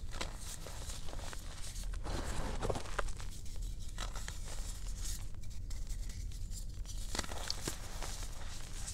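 Thin blocks of gym chalk crushed and crumbled between the hands, crunching and crackling, with soft powdery rubbing as the fragments grind into dust. The crackles are busiest near the start and again near the end, sparser in the middle.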